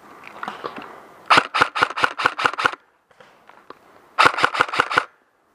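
Airsoft rifle firing two rapid strings of shots, about seven a second: ten or so shots, a pause of about a second and a half, then six more.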